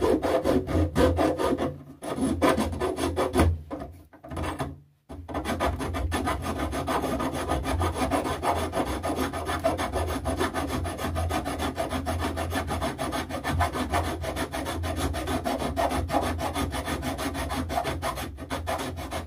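Hand file rasping back and forth across a steel socket held in a vise: the rough-filing stage of shaping it into a spring removal tool. Quick, even strokes, with two short pauses in the first five seconds, then steady filing.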